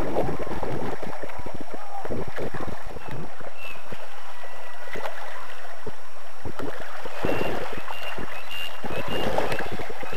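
Shallow river water rushing and splashing over a gravel riffle where salmon are swimming, with irregular low rumbles throughout and a few short faint high chirps in the second half.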